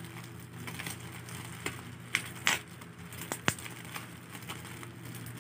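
Bubble wrap and plastic packaging being handled and pulled open: soft crinkling with scattered sharp crackles and clicks.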